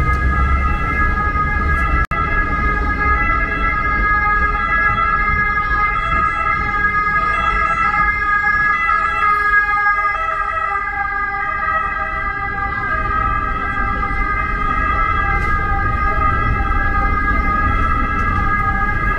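A siren-like alarm sounding continuously as a steady, unwavering chord of several high tones, over low street rumble.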